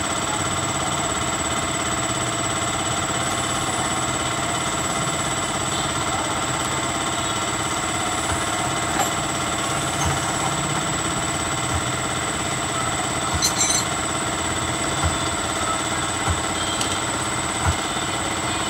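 A machine running with a steady hum made of several fixed pitches. A few light taps and clicks come in the second half.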